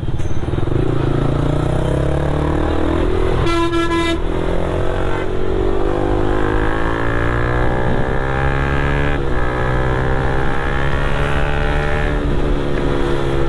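Motorcycle engine running under way, its pitch rising and falling slowly through the gears, over a steady rush of wind and traffic. A vehicle horn honks once, a bit under a second long, about three and a half seconds in.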